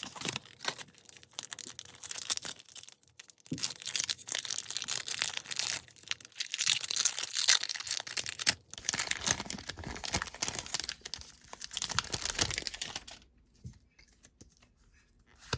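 Foil booster-pack wrapper of a Pokémon Sword and Shield pack crinkling and tearing as it is opened by hand, with dense crackling that stops about two seconds before the end.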